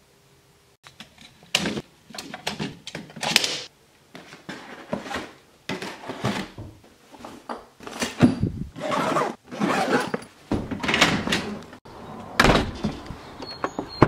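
A rapid string of knocks, thuds and rustles, with the loudest and deepest thud about twelve and a half seconds in.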